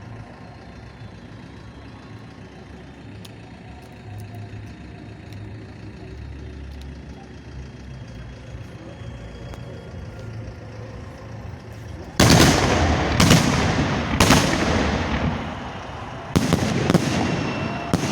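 A quiet outdoor background for about twelve seconds, then a fireworks salute opens with loud shots fired close by: three about a second apart, then two more near the end, each ringing on.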